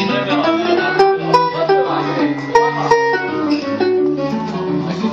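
Live jazz guitar and electric bass duo playing an up-tempo tune: the bass walks a steady line of notes about two a second while the guitar plucks a melody and chords above it.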